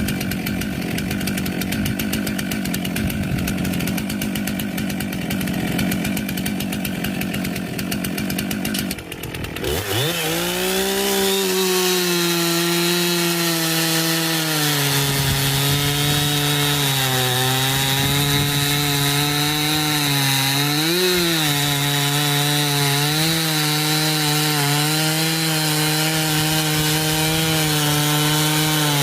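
Gasoline chainsaw idling with a rapid, even putter, then about ten seconds in it is throttled up and held at high revs, its pitch dipping slightly now and then as it trims a log to length.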